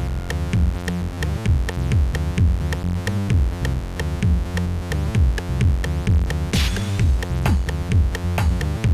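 Electronic background music with a steady drum-machine beat, synthesizer and falling bass notes.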